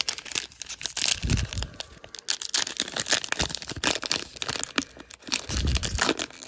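Trading card pack wrapper being torn open and crinkled in the hands, an irregular crackling rustle, with a dull handling bump about a second in and another near the end.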